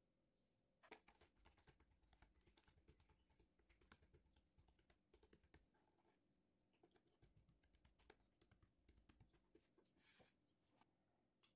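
Near silence with faint, irregular small clicks and taps, and a brief soft rustle near the end.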